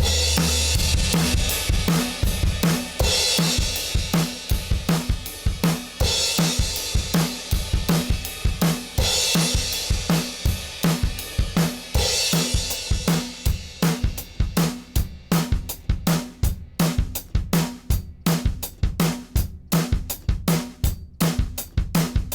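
Drum kit playing a steady groove of kick, snare and hi-hat, with cymbal crashes every few seconds in the first half, then a sparser pattern of separate hits.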